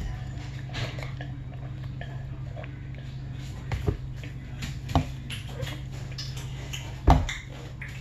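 Drinking from a plastic cup, with a few short knocks from the cup being handled. The loudest knock, about seven seconds in, fits the cup being set down on a table. A steady low hum runs underneath.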